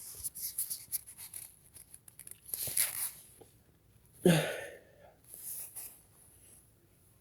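A person sniffing and breathing hard through the nose just after a sneeze brought on by snuff powder, with light rustling. There are a few short breathy bursts, the sharpest about four seconds in.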